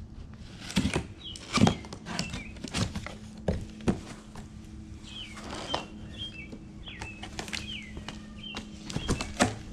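Power tool kit being unboxed: packaging handled and parts lifted out, with scattered knocks, thumps and rustling. Birds chirp in the background.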